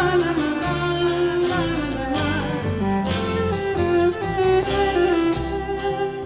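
Cypriot folk band playing an instrumental passage: a bowed viola melody over strummed laouto and bass, with a steady rhythm.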